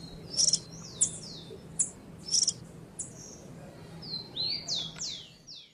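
Himalayan goldfinch singing: a run of sharp, high chirps, then a quick series of downward-sliding whistled notes near the end.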